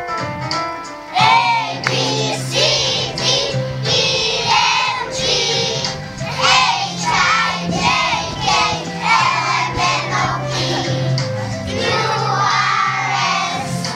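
A group of young children singing a song together over a keyboard accompaniment. The keyboard plays alone for about the first second before the voices come in.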